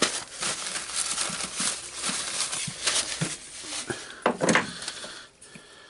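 Hands handling the rotary hammer's disassembled clutch parts on a workbench: rustling with small clicks and knocks, and a louder clatter about four and a half seconds in.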